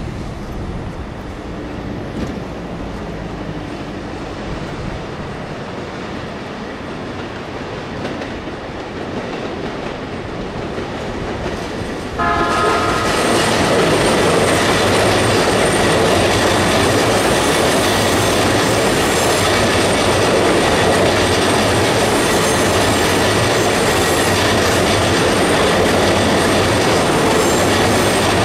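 Orange Chuo Line Rapid electric train, an E233 series, approaching with a low rumble and giving a short horn blast about twelve seconds in. After the horn its rolling and wheel noise stays loud as it runs past close by, while a yellow Chuo-Sobu Line E231 series train passes the other way near the end.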